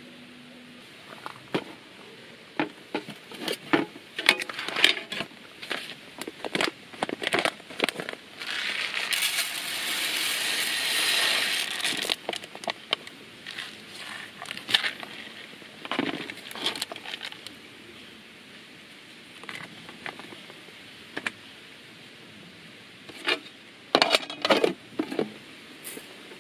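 An aluminium mess tin and its lid being handled: light metallic clinks, knocks and scrapes, with a steady pouring hiss lasting a few seconds about a third of the way in as the rice goes in.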